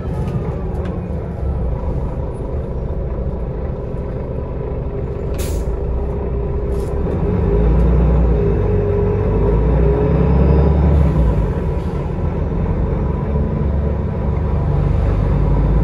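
Cabin noise of a Solaris Urbino 18 articulated city bus under way: its DAF MX11 diesel engine and drivetrain run with a low rumble that grows louder about halfway through. Two short hisses of compressed air from the bus's pneumatic system come about five and seven seconds in.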